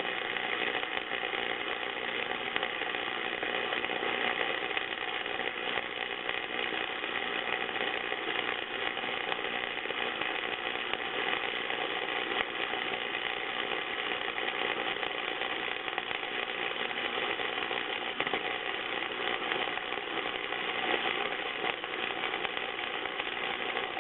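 Easy MIG 100 flux-core wire welder laying a continuous weld bead: a steady arc hiss and crackle, cutting off as the bead ends.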